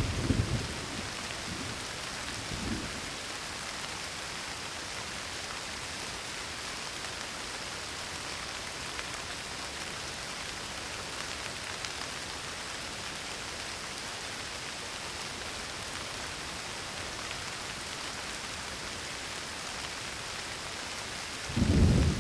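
Steady rain falling, an even hiss, with a low rumble of thunder dying away in the first second and another rumble rolling in near the end.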